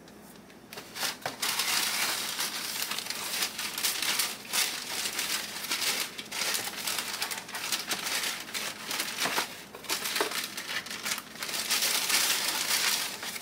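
Packaging crinkling and rustling as it is handled while new shoes are unpacked, starting about a second in and going on with many sharp crackles.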